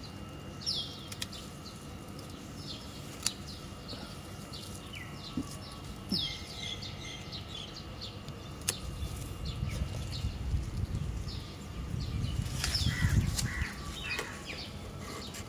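Small birds chirping repeatedly with short, quick falling calls, over a few sharp snips of hand pruning shears cutting garlic chives and the rustle of the chive leaves being gathered, loudest about 10 to 14 seconds in.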